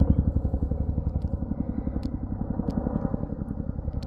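Chinook tandem-rotor helicopter passing, its rotor blades beating in a fast, even rhythm of about ten beats a second over a low drone, slowly fading.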